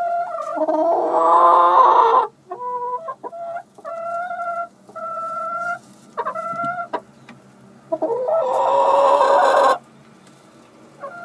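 Domestic hens clucking and calling, with two loud drawn-out calls, one about a second in and one near the end, and shorter notes between them.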